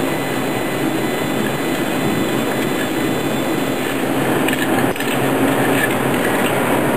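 Steady, fan-like noise of running laser-cutting machinery in a metal shop. A brief faint click comes just before the five-second mark, as the thin cut part is handled.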